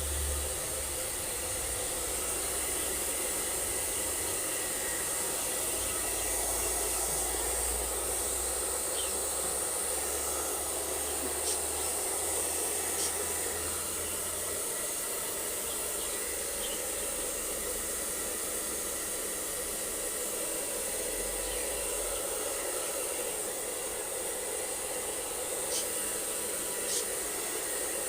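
Steady hissing noise with a high, even edge, and a few faint clicks.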